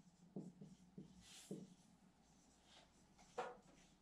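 Dry-erase marker writing on a whiteboard: faint, short strokes of the felt tip rubbing the board, the clearest about three seconds in.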